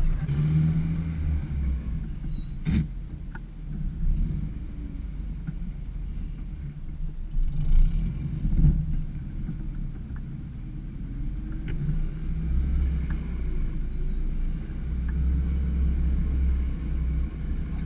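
Suzuki Samurai 4x4 engine running low and steady as the vehicle crawls along a dirt trail, with a sharp knock about three seconds in and a few light clicks and rattles later on.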